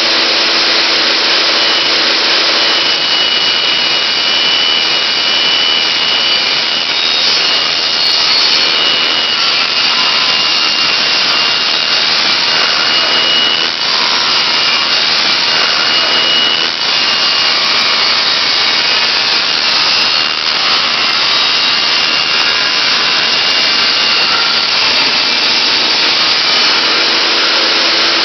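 Table saw running at full speed while a sheet of plywood is fed through the blade: a loud, continuous motor and blade noise with a steady high whine.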